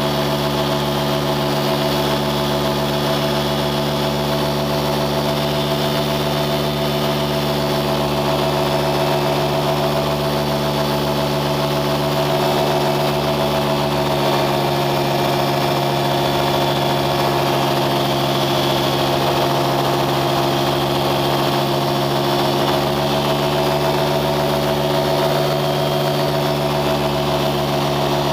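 An engine running steadily at an unchanging speed, an even hum with no revving or change in pitch.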